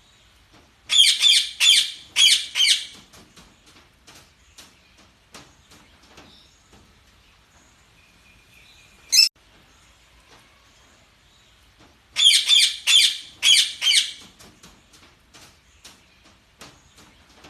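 Parakeets chirping: two bursts of loud, rapid chirps, each of about five quick calls, about a second in and again about twelve seconds in. A single sharp call comes about nine seconds in, with faint clicks and small calls between.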